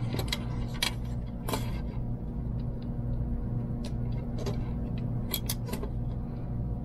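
Scattered light clicks and taps of small hair-dryer parts being handled, about eight over several seconds, over a steady low hum.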